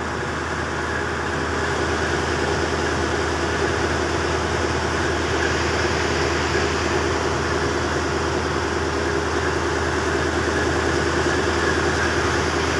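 Boat engine running steadily, a constant low drone, growing slightly louder about two seconds in.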